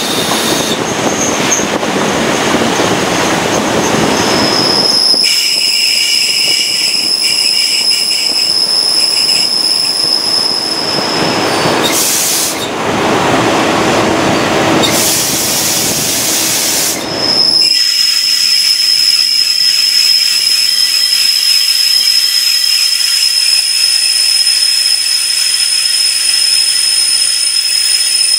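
CP class 1900 diesel-electric locomotive running on the line, heard from beside its body. A loud rushing rail noise fills the first five seconds and returns about halfway through. Between these and through the rest, a steady high-pitched wheel squeal sounds.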